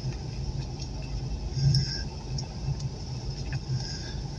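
Car engine and road noise from inside the cabin: a steady low hum as the car creeps along at low speed.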